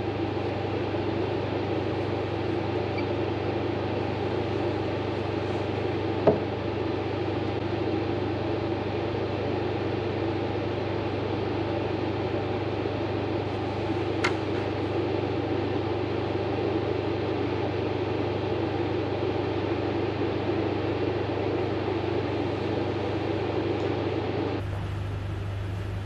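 Welding machine running steadily under load, a constant hum and fan drone as it drives heavy current through a 2.5 mm copper cable. A sharp click about six seconds in and another around fourteen seconds; near the end the sound drops to a quieter hiss.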